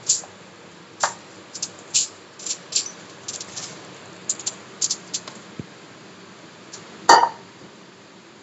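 Metal spatula scraping and tapping on a non-stick frying pan as a fried egg is slid out onto aluminium foil: a run of short clicks and scrapes, with one louder knock about seven seconds in.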